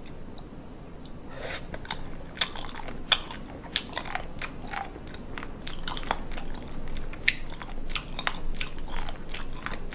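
A person chewing raw seafood (mullet sashimi and shellfish) with wet, crunchy mouth clicks coming irregularly several times a second.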